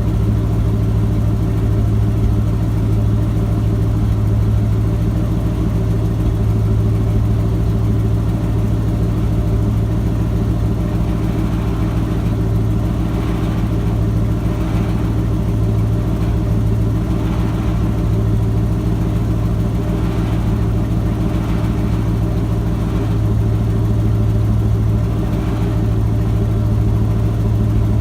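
Ford F-250's 7.5-litre 460 big-block V8 idling steadily while it warms up after a fresh start.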